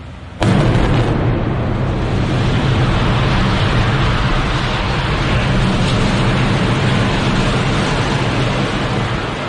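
Explosive demolition of a high-rise apartment block. A sudden loud blast comes about half a second in, followed by a long, steady rumble as the building collapses, easing slightly near the end.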